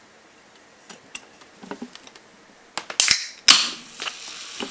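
Aluminium ring-pull can of carbonated Coca-Cola being opened. A few light clicks of fingers on the tab come first, then two sharp cracks about half a second apart as the tab breaks the seal. The second crack carries a loud hiss of escaping gas that dies down into soft fizzing.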